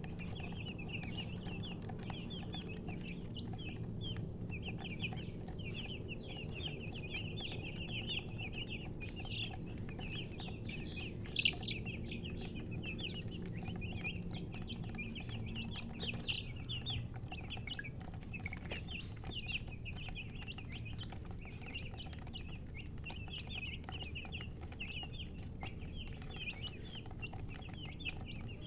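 A group of chicks peeping continuously, with many short high chirps overlapping one another, over a steady low hum. One brief louder sound comes about eleven seconds in.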